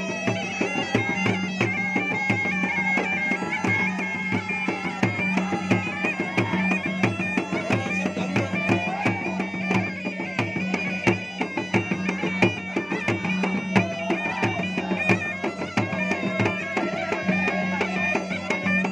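Makassar gendang, long double-headed drums, beaten in a fast, dense rhythm while a reed pipe plays a wavering, reedy melody over a steady low drone.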